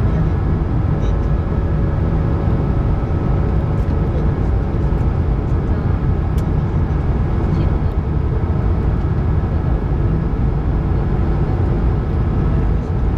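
Steady cabin noise of an Airbus A220-300 on final approach: its Pratt & Whitney PW1500G geared turbofans running and air rushing past the airframe, as a low, even rush with a faint steady whine.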